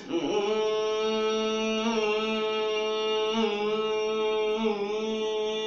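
A man singing without accompaniment, holding one long wordless note that wavers a little in pitch a few times before he breaks off near the end.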